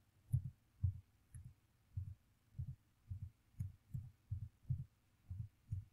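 Computer keyboard keystrokes picked up as faint, dull thumps with light clicks, about two a second at an uneven pace, as numbers are typed into a table.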